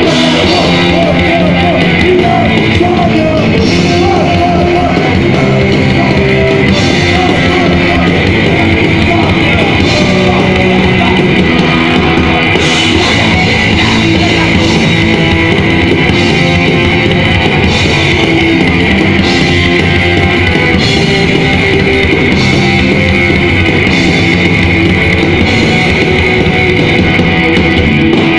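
Punk rock band playing live and loud: electric guitars and drum kit, continuous and unbroken.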